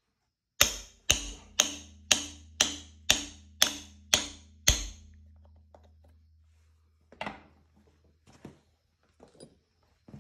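Hammer striking a bolt driven into a bread-packed crankshaft pilot bore: nine sharp metallic blows about half a second apart, with a low ring hanging on after them, then a few lighter knocks. The bread packed behind the bolt is forcing the pilot bushing out of the crankshaft.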